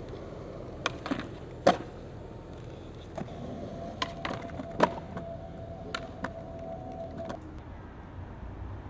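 Skateboard on concrete: a series of sharp clacks from the tail popping and the board and wheels landing, the loudest about two seconds in. A steady hum comes in about three seconds in and stops about four seconds later.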